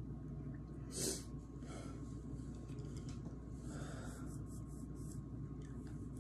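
A person breathing hard against the burn of very hot sauce, with one sharp breath about a second in and a softer one later. A steady low hum runs underneath.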